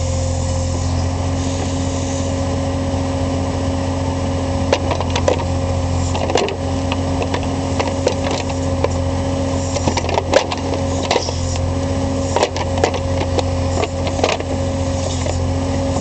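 John Deere 8875 skid steer loader's diesel engine running steadily, with irregular knocks and rattles from about five seconds in as the loader works.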